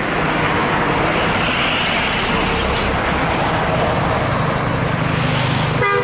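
Road traffic: a coach bus approaching with a motorcycle just ahead of it, steady engine and tyre noise that swells as they draw near.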